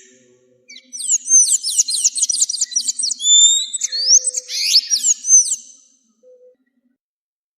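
Song of an azulejo, a songbird: a quick run of high, downward-sliding whistled notes, about five a second, then a few longer slurred whistles, ending about six seconds in.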